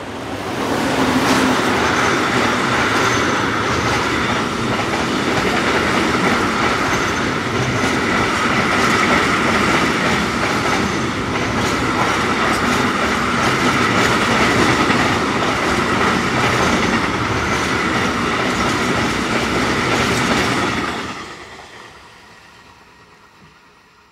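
Container freight train headed by a Siemens ER20 (class 223) diesel-electric locomotive passing close by: the loud rolling noise rises within the first second, then a long run of container wagons goes past with a steady clickety-clack of wheels over the rails and a steady high ringing. The sound dies away quickly near the end as the last wagon passes.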